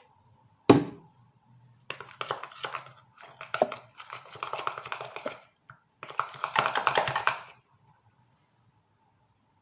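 Homemade slime being squished and kneaded by hand, giving two long stretches of dense, irregular wet clicking and crackling, after a single knock about a second in.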